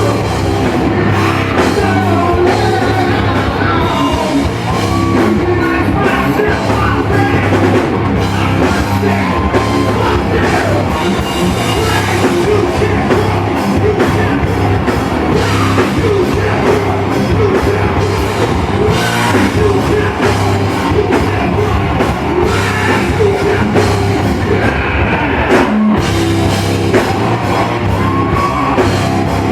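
Rock band playing loud and without a break: drum kit, amplified instruments and a singer.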